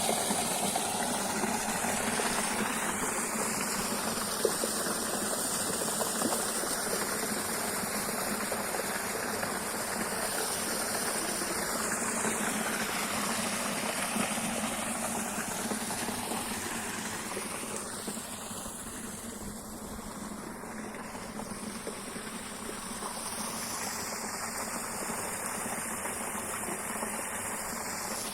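Running water making a steady rushing noise, a little quieter about two-thirds of the way through.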